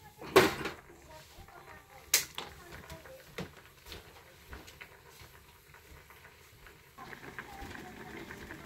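Kitchen handling noises: a loud clatter about half a second in and a sharp clink at about two seconds, then a few lighter knocks. A soft steady hiss comes in at about seven seconds.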